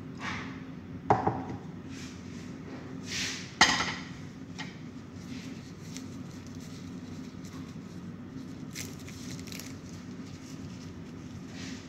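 Kitchenware being handled: a sharp knock about a second in and a louder clatter of dishes about three and a half seconds in, then a few faint ticks, over a steady low hum.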